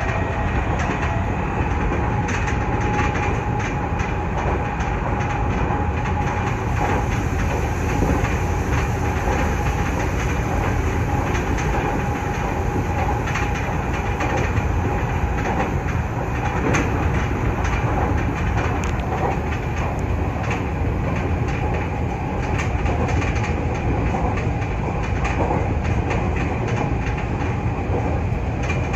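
Nankai 8300 series electric train running steadily at speed, heard from inside the front car: a continuous rumble of running noise with wheels clicking over the rail joints.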